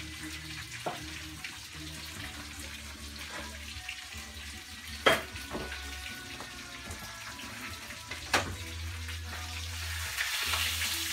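Panko-breaded haddock fillets sizzling in hot oil in a frying pan: a steady hiss that grows louder near the end. A few sharp clinks of a metal utensil cut through it, the loudest about five seconds in and another about eight seconds in.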